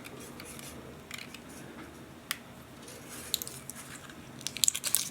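Small scattered clicks and light rustling from handling a freshly wound copper wire coil and its loose wire ends, with a quick run of clicks near the end.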